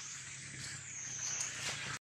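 Outdoor ambience dominated by a steady, high-pitched insect drone, with a few faint ticks in the second half.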